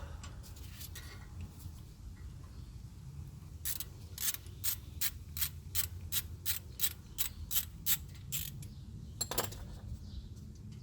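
Hand ratchet clicking in a steady rhythm, about three clicks a second for some five seconds, then a louder double click near the end.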